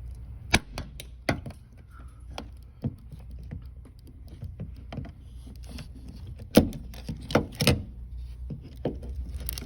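Hand tools and hardware clicking and knocking irregularly against the rear sliding window regulator assembly while it is worked loose, with a cluster of louder knocks about two-thirds of the way through, over a low steady hum.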